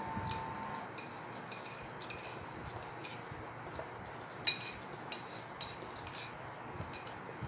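Red plastic chopsticks clicking and tapping against a white ceramic plate while picking up noodles: a run of light, sharp taps, the loudest about four and a half seconds in.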